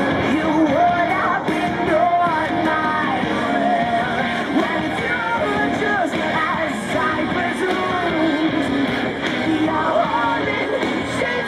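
Rock music with a singing voice, playing steadily at a strong level.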